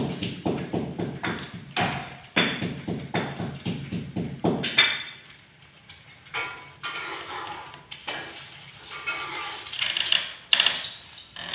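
Pet monkey giving short harsh calls, lower-pitched through the first few seconds and higher and squealing later, with a few knocks among them.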